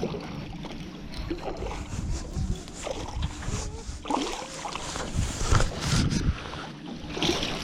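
Wind on the microphone and scattered knocks and thumps in a small fishing boat, with faint voices.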